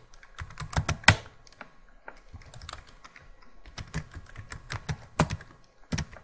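Typing on a computer keyboard: irregular runs of key clicks, with a few harder keystrokes standing out.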